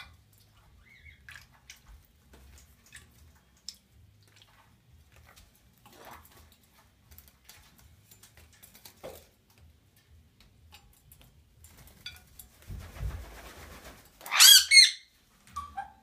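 Parrot giving two loud, harsh squawks about three-quarters of the way through, just after a short noisy rustle, and a smaller call just before the end. Otherwise only faint small clicks and taps.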